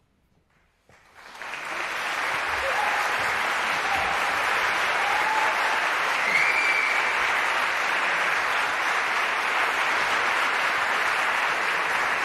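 Audience applause breaking out about a second in after silence, building quickly and then holding steady.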